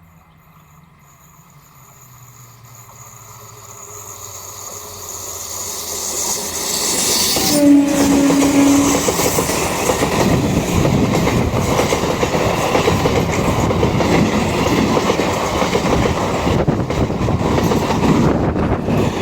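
A train approaching and passing at speed: its sound swells over several seconds, one short horn blast sounds as it draws level, and then the coaches run past with the wheels clattering over the rail joints.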